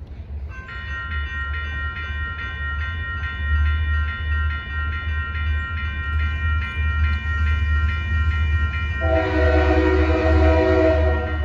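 Railroad grade-crossing bell starts ringing about half a second in, a rapid steady repeated ding, as the crossing signals activate and the gates come down. About nine seconds in, an approaching train's horn sounds loudly for about two seconds over the bell.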